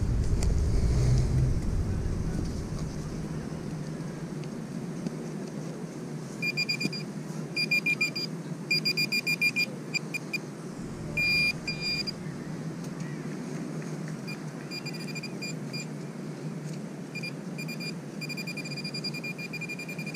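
Handheld metal-detecting pinpointer probe beeping: rapid high-pitched beeps in short on-off bursts, starting about a third of the way in and recurring to the end, alerting on a metal target in the dug hole. A low rumble under the first few seconds.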